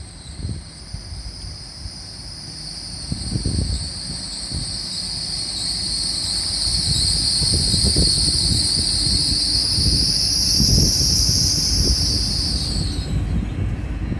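GWR Class 800 train running in and slowing, with a steady high-pitched squeal from the wheels or brakes over a low rumble that grows louder. Near the end the squeal falls in pitch and stops.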